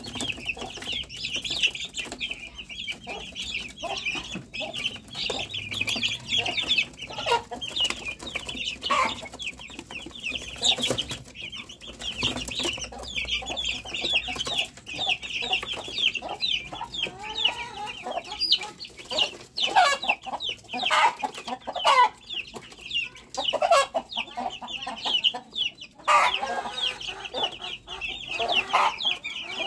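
A flock of young chickens peeping non-stop in rapid, high cheeps, with louder, lower clucks mixed in, most of them in the last third.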